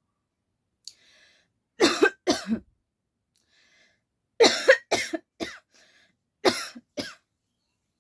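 A woman coughing on purpose in short hard coughs: two, then a run of three, then two more. She is faking them, though she says the fake coughing is setting off real coughs.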